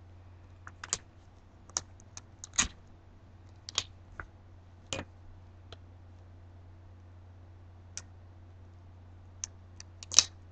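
Scattered light clicks and taps from a wine glass and small craft items being handled with gloved hands, the loudest near the end. A faint steady low hum runs underneath.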